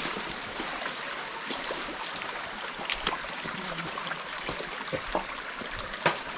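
Small rocky hill stream running: a steady rushing of water with a few sharp clicks scattered through it.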